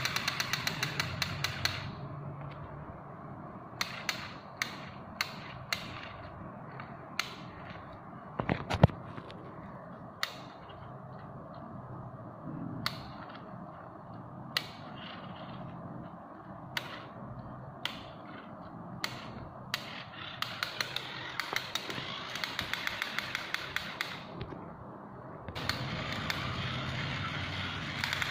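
A battery-powered toy soldier's small electric motor and plastic gearbox run with a rapid, even clicking, which stops about two seconds in. Scattered clicks and taps from handling the opened toy follow. The rapid clicking starts again about two-thirds of the way through, pauses briefly, and runs on near the end.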